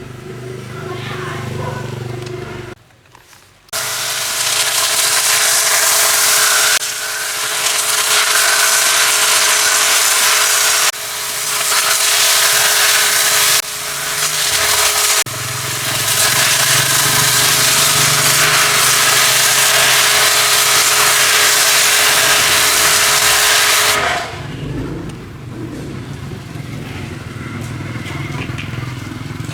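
High-pressure washer spraying a car: a loud, steady hiss of the water jet over the washer's motor drone. The spray starts about four seconds in, cuts out briefly a few times as the trigger is let go, and stops near the end, leaving a lower motor hum.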